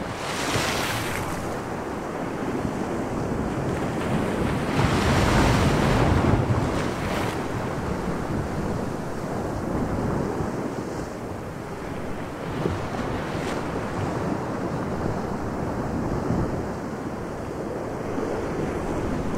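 Sea waves washing and wind rushing in a steady noisy wash, with louder surges about a second in and again around five to seven seconds in.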